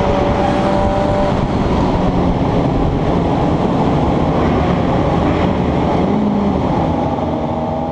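Loud, steady wind and road noise from moving at highway speed, with a sport bike's engine whining under it.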